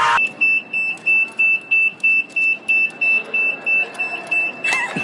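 Electronic anti-theft alarm on a store's camera display counter, beeping a high, steady tone about three times a second as a tethered display camera is handled. Voices come in near the end.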